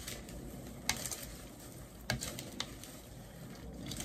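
Buttered popcorn being stirred and tossed in a plastic bowl with a serving spoon and a hand: a dry rustling, with a few light clicks of the spoon against the bowl.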